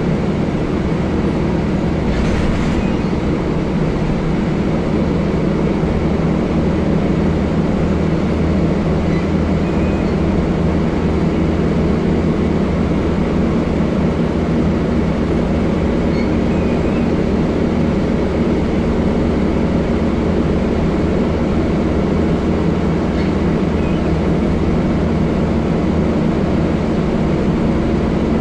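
Scania L94UB bus's rear-mounted diesel engine running steadily while the bus drives along, heard from the rear seats inside the cabin, with road noise and a brief hiss about two seconds in.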